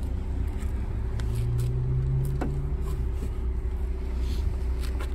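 Steady low vehicle rumble, with the Honda Civic's trunk lid latch clicking open about halfway through.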